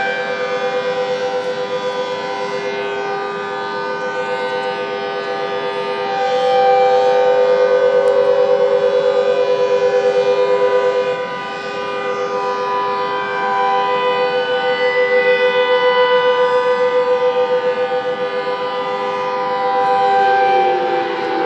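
Several outdoor warning sirens sounding a steady tone together across the city, their pitches overlapping and the sound swelling and fading in waves. Near the end one starts to wind down, its pitch falling.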